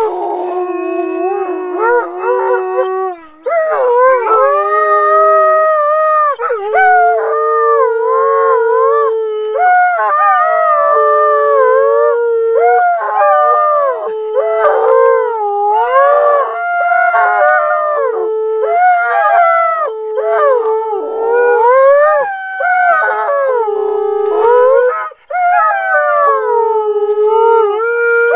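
Two Alaskan Malamutes howling together, their long notes overlapping and sliding up and down in pitch, with brief breaks about three seconds in and near the end; the howling is set off by a siren.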